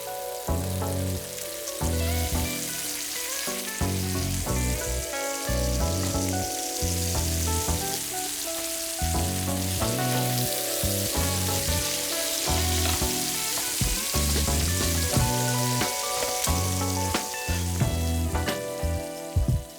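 Chicken sizzling in a hot pan, a steady frying hiss, over background music with a bass line.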